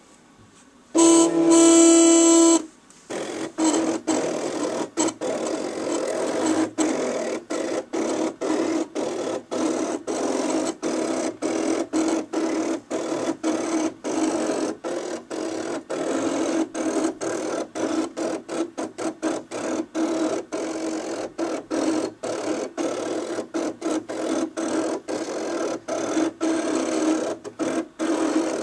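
Cricut electronic cutting machine cutting a sheet of cardstock. About a second in, a loud steady motor tone lasts for about a second and a half. Then the stepper motors whir in short runs broken by many brief pauses as the blade carriage and mat shift back and forth.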